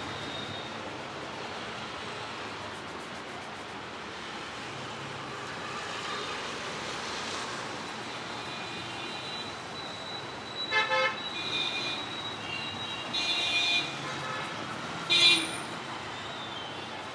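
Steady road traffic noise with vehicle horns honking: several short horn toots in the second half, the last one the loudest.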